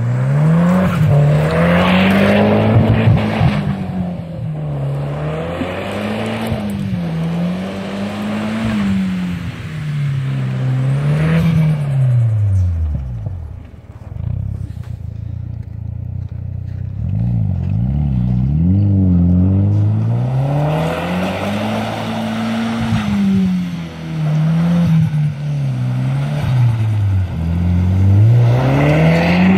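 Audi TT 225 hp's turbocharged 1.8-litre four-cylinder, breathing through a single LRS silenced rear-box exhaust, revving up and down over and over as the car is driven. About halfway through the note sinks almost to idle. It then comes back with a few quick blips before revving in long swells again.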